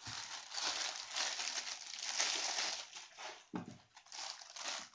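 Clear plastic packaging bag crinkling as it is handled and a powerline adapter is pulled out of it, a dense crackle that breaks into shorter rustles after about three seconds, with a soft knock about three and a half seconds in.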